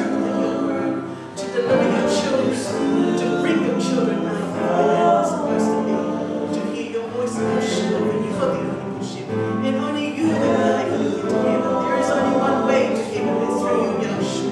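Voices singing a slow worship song, with long held notes.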